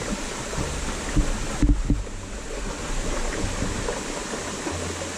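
Stream water running steadily over rocks, with wind rumbling on the microphone and a couple of low thumps between one and two seconds in.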